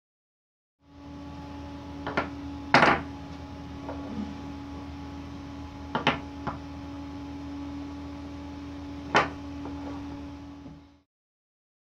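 Hard white HDPE plastic blocks set down and knocked against a wooden workbench: five sharp knocks, the loudest about three seconds in, over a steady low electrical hum.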